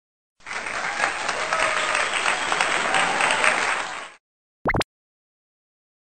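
An applause sound effect: dense clapping that starts suddenly and fades out after about four seconds. About half a second later comes one short rising chirp.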